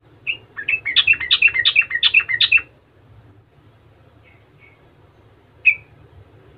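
Yellow-vented bulbul singing a fast, bubbly run of about a dozen short notes for two and a half seconds. A couple of faint notes follow, then one sharp call near the end.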